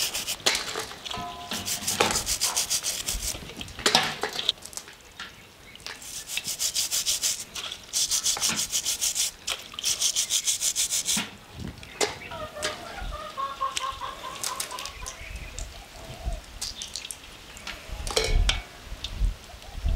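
A crayfish shell scrubbed with a stiff plastic brush, in several bursts of rapid back-and-forth strokes, with occasional knocks as the crayfish are handled in a stainless steel bowl.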